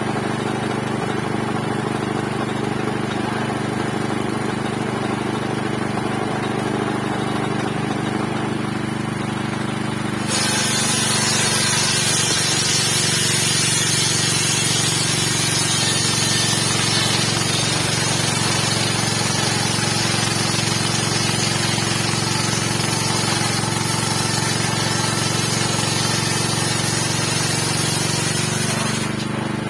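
A 7.5 HP engine runs steadily, driving a 60 cm circular saw blade. About ten seconds in, the blade bites into wood and a loud rushing cutting noise joins the engine. The cutting noise stops just before the end while the engine keeps running.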